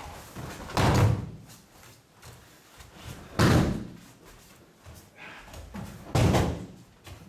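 Three heavy thuds a little under three seconds apart: an aikido partner being thrown and landing in breakfalls on the padded mat.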